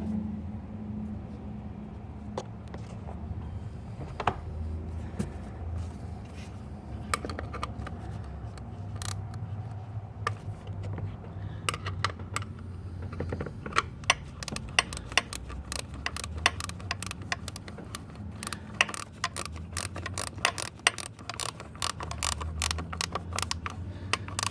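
Hand ratchet clicking as the hold-down bolt of an ignition coil pack on a Ford 3.5 EcoBoost V6 is tightened down, scattered clicks at first, then quick runs of clicks from about halfway on.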